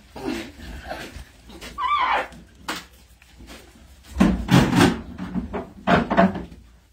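Alpacas jostling at the feed: a short wavering call about two seconds in, then louder rustling and bumping as they push close, around four to five seconds and again near six seconds.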